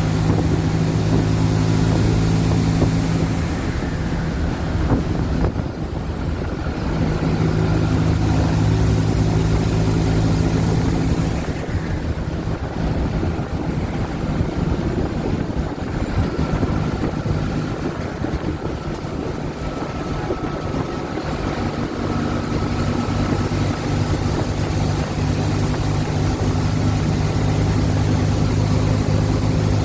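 Mercedes-Benz OF-1722M bus engine running under load. It eases off briefly about five seconds in and again for several seconds in the middle, then pulls strongly again. A faint high whine rises and falls over it.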